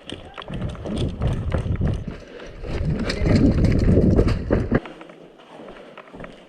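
Rapid footsteps and rustling of a player on the move, over a heavy low rumble on the microphone, cutting off suddenly about five seconds in.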